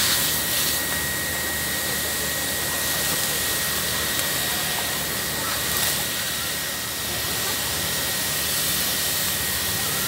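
Steady rushing hiss of a fire hose spraying water onto burning reeds, over the steady hum of a fire pump engine running.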